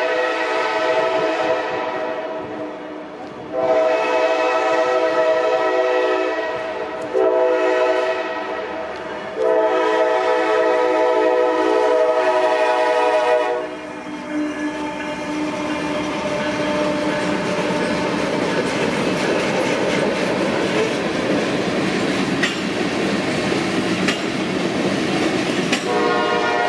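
CSX diesel freight locomotive's air horn sounding for a grade crossing in the long, long, short, long pattern, the last blast held about four seconds. After the horn stops, the steady rumble and rattle of loaded covered hopper cars rolling past on the rails, with the horn starting again near the end.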